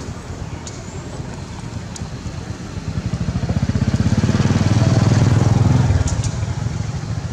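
A motor vehicle's engine passing: a low, rapid throb that grows louder about three seconds in and falls away about six seconds in.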